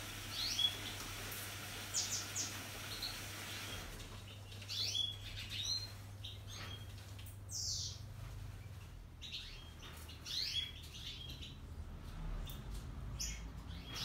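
Pet budgerigars chirping in short high calls, in scattered clusters, over the low steady hum of a Hotpoint Ariston Aqualtis washing machine taking in water for its rinse during the test programme.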